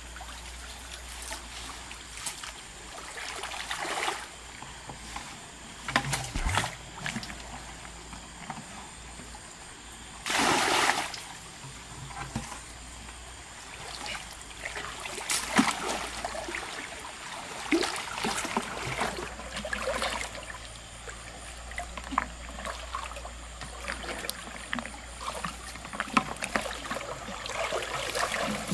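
Water splashing and trickling, with scattered small splashes and one louder splash about ten seconds in.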